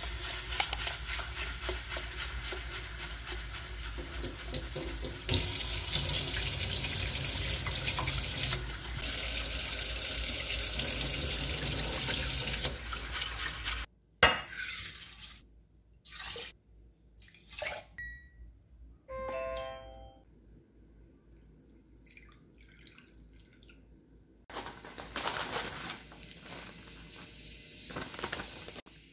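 Kitchen tap running into a glass bowl as rice is rinsed by hand in a stainless steel sink, the flow heavier in the middle. The water stops about halfway through, leaving a few light knocks, a brief run of tones, and some handling noise.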